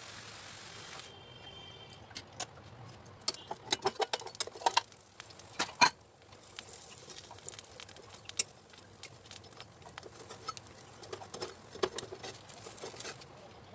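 Metal cookware clinking, knocking and scraping: a steel bowl and a metal spatula against an iron wok as a steamed rice-coconut pancake is uncovered, loosened and lifted out. A dense run of sharp clinks comes between about two and six seconds in, the loudest near six seconds, then scattered taps and scrapes follow. A steady hiss stops about a second in.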